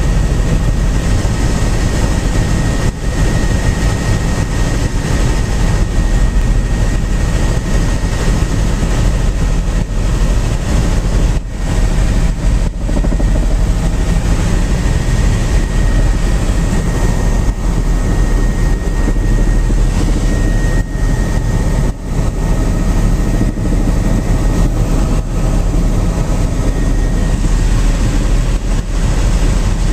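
Helicopter in steady flight, heard from inside the cabin: a loud, unbroken engine and rotor drone with a thin, steady high whine over it.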